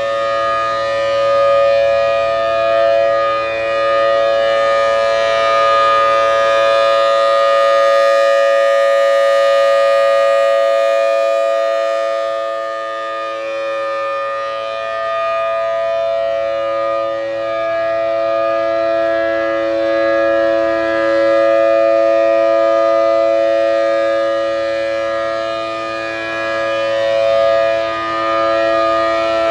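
Federal Signal Thunderbolt 1000T blower-driven outdoor warning siren sounding its steady full-alert tone, with the raspy edge typical of its 6M chopper. The loudness swells and fades slowly as the rotating horn sweeps round.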